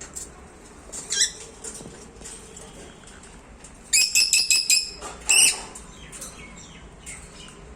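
Lovebird chirping: a short high chirp about a second in, then a quick run of sharp chirps around four seconds in and another call just after.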